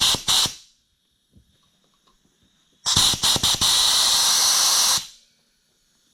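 Pneumatic spark plug cleaner blasting fine glass or silica grit at a spark plug: a few quick hissing bursts at the start, then after a short pause one sustained blast of about two seconds that cuts off.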